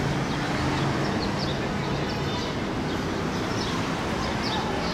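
City street traffic noise: a steady rumble of running engines, with a car passing and short high bird chirps now and then.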